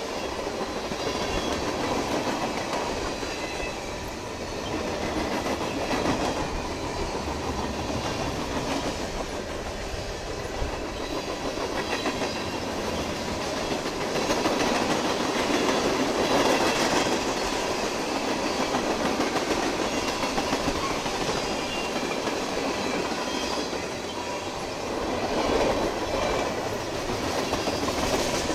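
Freight train rolling past, its wheels clacking over the rail joints in a steady rumble that swells louder a few times.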